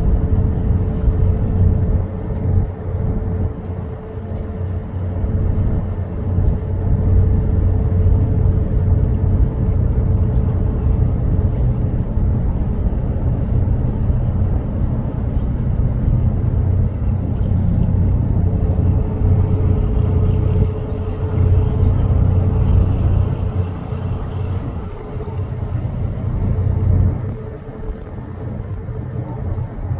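Steady low engine rumble with a constant hum over it, dipping and swelling slightly in level.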